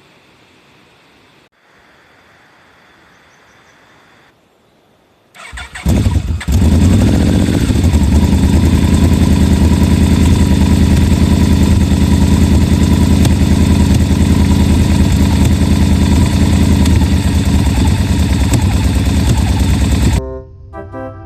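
Motorcycle engine started about five seconds in, catching after a few uneven firings and then idling steadily and loudly. It cuts off suddenly near the end, giving way to organ-like music.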